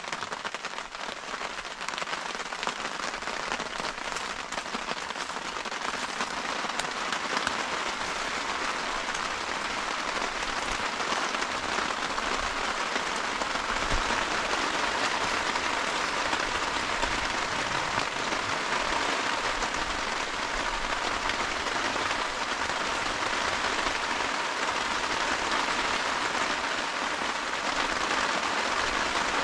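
Steady, heavy rain falling, a dense patter that builds a little over the first several seconds and then holds.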